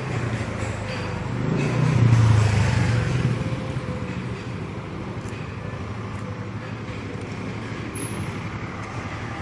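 Low, steady engine rumble of a motor vehicle, swelling louder about two seconds in and easing back after.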